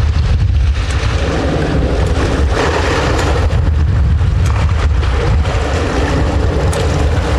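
Boat engine running with a steady low hum, and wind buffeting the microphone.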